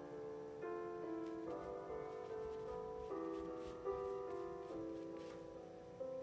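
Background piano music: slow, soft chords changing about once a second.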